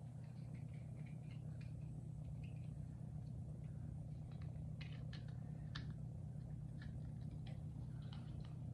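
Scattered small clicks and taps as lamp parts are handled and fitted during rewiring, over a steady low hum.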